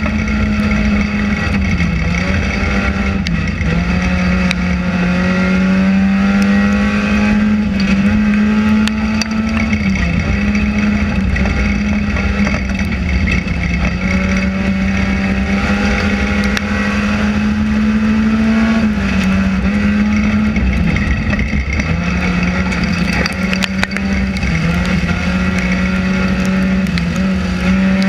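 Race car engine heard from inside the cabin, running hard at fairly steady revs. The engine note dips briefly several times as the throttle is lifted, and fainter rising engine notes come and go above it.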